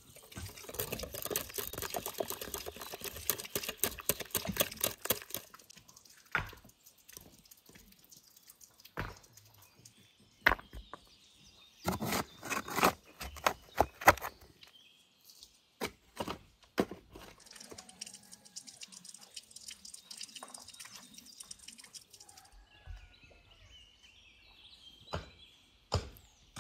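A rapid run of scraping and clicking as flour and egg are stirred in a glass bowl, then a steel shovel blade biting into stony soil with several heavy scrapes and thuds, then faint bird chirps.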